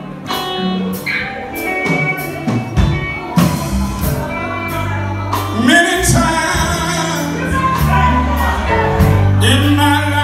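Live gospel quartet music: a male lead singer over electric bass, guitar and drums, with a steady beat and held low bass notes.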